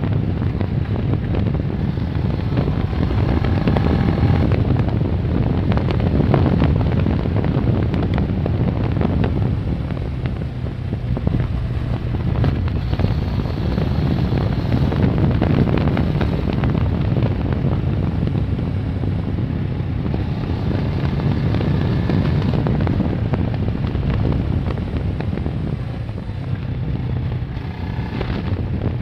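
Kawasaki ER-6n's 649 cc parallel-twin engine running while riding, its note rising and falling a little with the throttle, with wind rushing over the phone's microphone.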